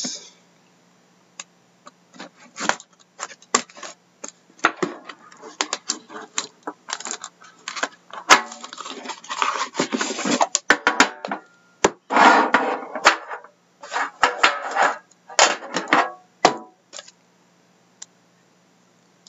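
Plastic shrink wrap being slit, torn and pulled off a metal trading-card tin, with crinkling plastic and clicks and knocks as the tin and box are handled, in irregular bursts that stop near the end.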